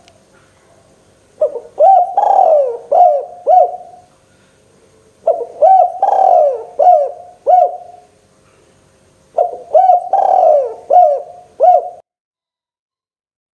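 Spotted dove (tekukur) cooing: three phrases of about five arched coo notes each, a few seconds apart.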